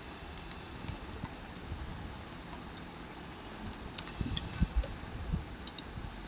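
Irregular keystrokes on a computer keyboard and mouse clicks over a steady faint hiss, the clicks coming thicker and louder in the second half.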